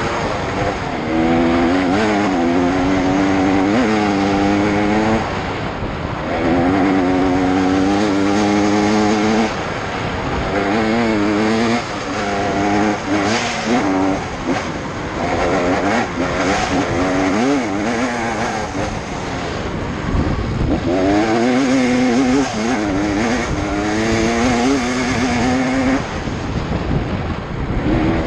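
GasGas EC 250 two-stroke enduro motorcycle ridden hard. The engine pitch climbs through repeated rev runs as the rider accelerates and shifts up, with brief drops when the throttle is closed, about six seconds in and again around ten, twelve and twenty seconds.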